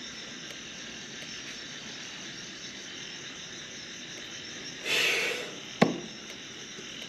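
Steady chirring of crickets and other night insects. About five seconds in comes a short, loud, noisy rush, followed by a single sharp knock as a knife point is driven into a wooden ledge.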